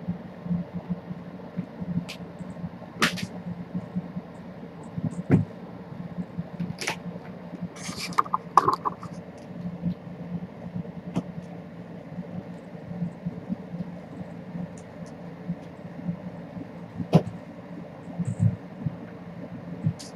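Kittens playing with a feather wand toy on a hardwood floor: scattered taps and thumps from pouncing paws and the toy hitting the boards, over a steady low room hum.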